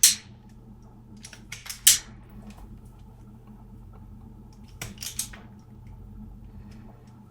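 A few sharp clicks and clinks of small parts and tools being handled on a workbench, the loudest about two seconds in and another pair near the five-second mark.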